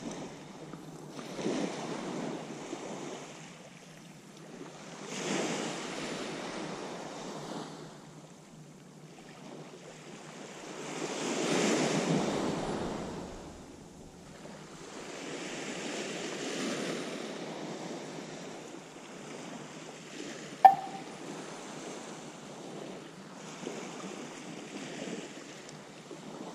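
Small waves breaking and washing up on a sand-and-pebble shore, swelling and fading every few seconds. There is a single sharp click about three-quarters of the way through.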